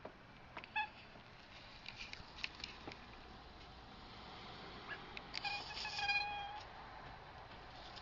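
Domestic cat chattering at a bird through a window screen: a short chirp about a second in, a few soft clicks, then one longer meow-like call of about a second past the middle.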